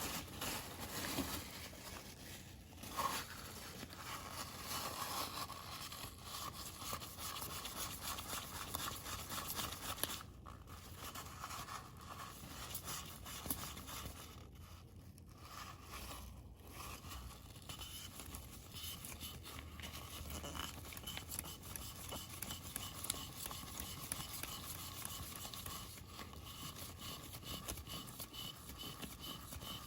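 Continuous scratchy scraping and rubbing of hand work on parts of a PECS oil filter being cleaned, with scattered small clicks.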